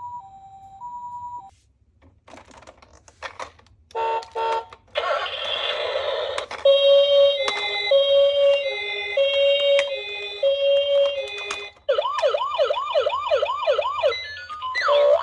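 Electronic toy ambulance sirens sounding one after another. First a brief, quieter two-note beep. Then a loud two-tone hi-lo siren switching notes about every 0.7 seconds, and from about twelve seconds in a fast wailing siren sweeping up and down about three times a second.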